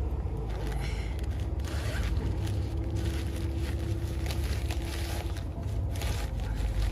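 Rustling, scraping handling noises of a packed vehicle rear tent and its storage bag being opened and unpacked, over a steady low rumble.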